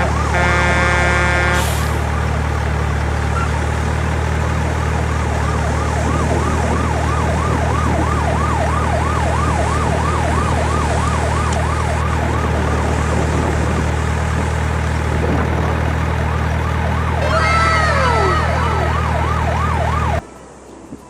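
A siren wailing up and down about twice a second over a steady low hum. A horn sounds twice at the start, and several falling tones come in near the end. The sound cuts off abruptly just before the end.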